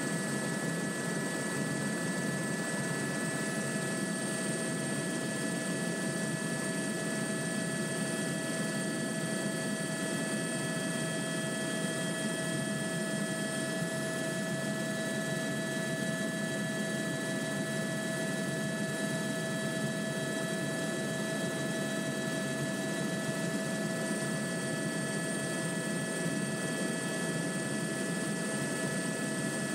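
Steady cabin noise of an AS350 Écureuil single-turbine helicopter in cruising flight: a constant rush of rotor and engine noise with several high steady whining tones over it.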